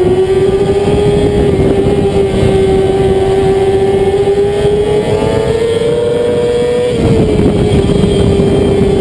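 Race motorcycle engine held at high revs, heard from the bike itself over wind rush. Its pitch climbs slowly, drops a step about seven seconds in, then holds steady.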